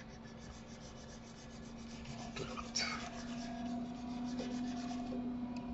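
Faint scratchy rubbing of a hand moving at a computer desk, over a low steady electrical hum. One brief louder rub comes just before three seconds in.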